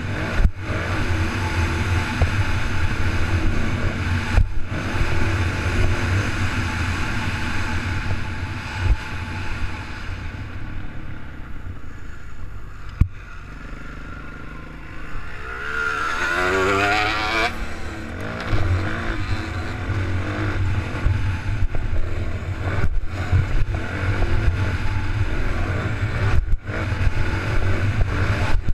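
Motocross bike engine running under load, with wind noise on the microphone. It eases off about ten seconds in, then revs up and down in quick rising pitches around sixteen seconds in before running hard again.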